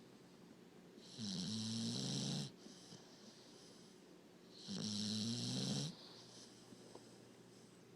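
Puppy snoring: two snores about three and a half seconds apart, each a little over a second long, each a low pitched tone with a breathy hiss.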